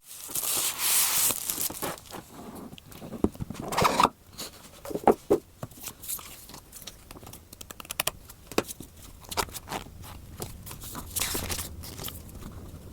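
Hands unpacking a board game box: plastic wrap crinkling and tearing in the first couple of seconds, then cardboard and game pieces rustling, with many short clicks and taps and another crinkling rustle near the end.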